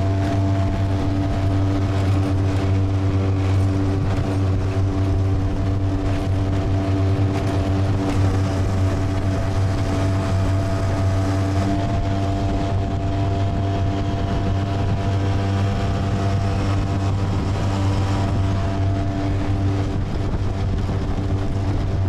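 Yamaha 5 hp outboard motor running at a steady cruising speed with the boat under way, holding one even pitch throughout.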